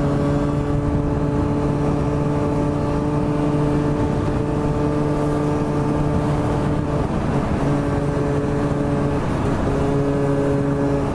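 Small 50cc scooter engine running at a steady pitch while cruising, heard from on board over the rush of wind. The engine note breaks briefly about seven seconds in and again a couple of seconds later, then carries on at the same pitch.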